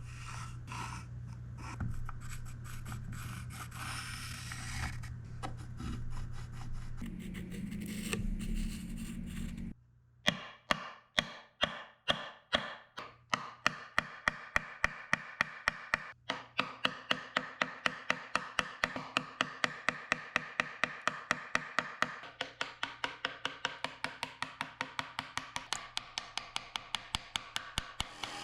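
Workshop tool work: rubbing and scraping over a low steady hum, then, about ten seconds in, an even run of sharp taps at about three a second that lasts to the end.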